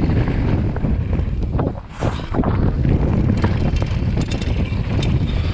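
Wind buffeting a chest-mounted action camera's microphone at speed, over the rumble of a hardtail mountain bike's tyres on a dry dirt trail, with sharp rattles from the bike over bumps. The noise drops briefly about two seconds in, then returns.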